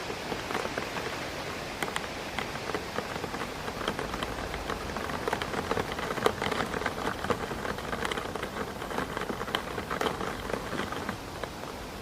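Rain hitting a window pane: many irregular drop taps over a steady rush of rain noise, with the taps coming thickest in the middle of the stretch.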